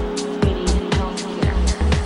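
Background electronic music: a steady beat of deep kick drums and sharp percussion hits over a held synth note.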